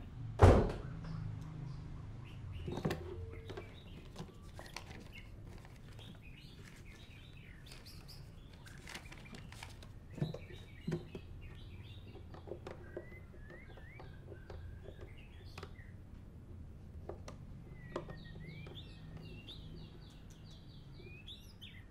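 Birds chirping and twittering in many short repeated calls, with a loud thud about half a second in, like a door shutting. A few sharp clicks come around ten seconds in, as keys on a push-button desk telephone are pressed.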